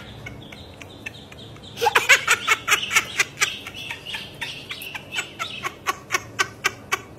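Ducklings peeping: a rapid run of short, high chirps, several a second, starting about two seconds in.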